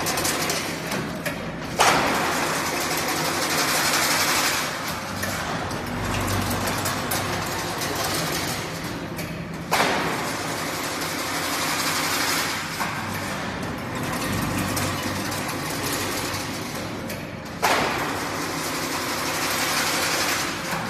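Factory machine running through repeated work cycles over a steady low hum: about every eight seconds a sharp knock, then a few seconds of loud noise that fades back down.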